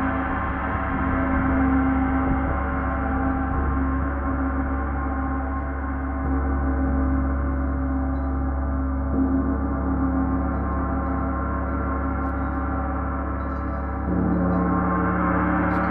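Paiste 34-inch Symphonic gong kept sounding with a soft felt mallet, a steady dense wash of many overlapping tones. About 14 seconds in a second mallet joins and the sound grows louder.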